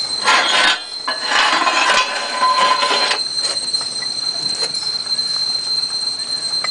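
Metal scraping and knocking as the steel base plate and frame of a hand-operated biomass briquette press are worked by hand, in two rough stretches in the first three seconds, with a few sharp clicks later. A steady high-pitched whine runs underneath.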